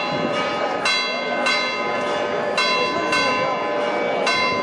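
Church bells ringing, a fresh strike about every half second to a second, each one ringing on under the next.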